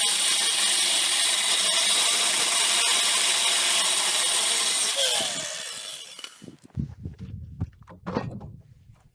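Power saw with a regular cutting disc running through an old cast-aluminium tractor part, a steady high whine with grinding. About five seconds in the saw is switched off and winds down with a falling pitch, followed by a few low knocks.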